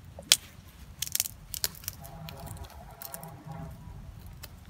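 Dry stalks, twigs and leaf litter rustling and snapping as a hand works into a frog's hole in the soil, with a few sharp cracks, the loudest about a third of a second in and a quick cluster about a second in.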